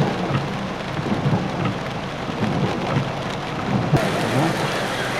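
Heavy rain pouring down, a dense hiss of falling drops with a low rumble underneath. There is a sharp click about four seconds in.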